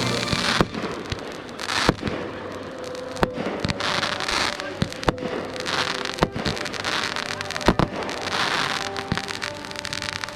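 Fireworks display: sharp bangs of aerial shells about every second, with crackling and hiss from the bursts in between.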